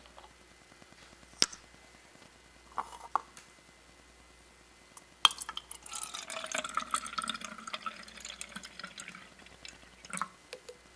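Water pouring from a plastic bottle into a clear plastic cup for about four seconds, starting about five seconds in. A few light clicks come before and after it.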